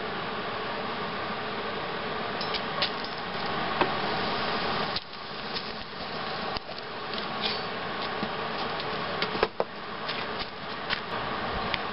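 Steady whirring hiss of an arc welder's cooling fan, with a few light clicks and ticks scattered through it.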